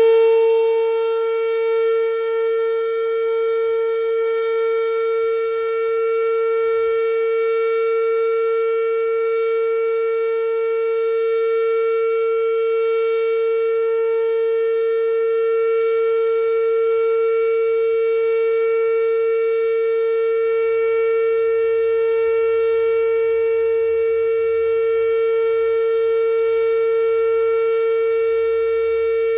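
Fedelcode Model 5 eight-port outdoor warning siren sounding its steady alert signal in a test: one loud held tone with many overtones, never rising or falling in pitch.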